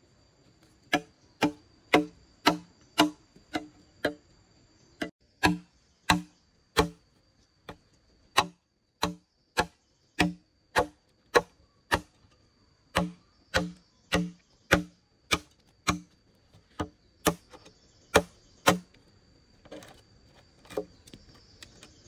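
Steady, evenly spaced blows of a tool on wood or bamboo, about two a second, each with a short pitched ring. The blows stop a few seconds before the end, leaving a few softer knocks.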